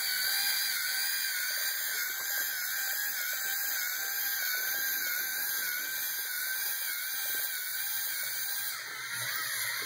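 LEGO Mindstorms NXT servo motors whining steadily as the geared robot drives along, the pitch wavering slightly, with a short dip in level about nine seconds in.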